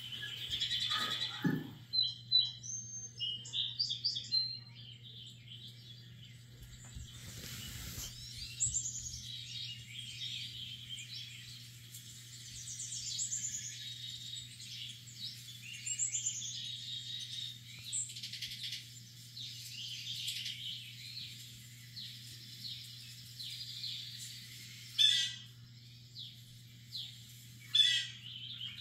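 Songbird chirps and calls from a nature video played on a TV, many short high notes throughout, with two louder sharp calls near the end, over a steady low hum.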